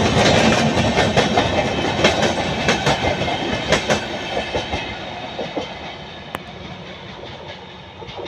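LHB passenger coaches of an express train running past, wheels clicking over the rail joints. The clatter thins out and fades steadily as the end of the train passes and draws away.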